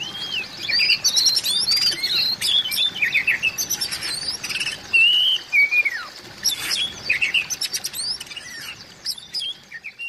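Oriental magpie-robin singing a varied song of clear gliding whistles broken by quick chattering notes.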